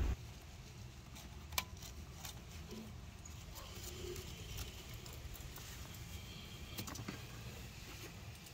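Faint hand work on an engine: a single sharp click about one and a half seconds in, a few light clicks near the end and small scattered ticks, over a low steady hum.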